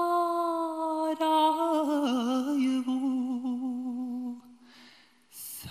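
Solo male voice singing sevdah without words: a long held note, then a wavering, ornamented slide down to a lower held note that fades out about four seconds in. A short hiss comes just before the end.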